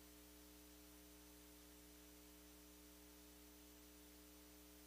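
Near silence with a faint, steady electrical hum and hiss.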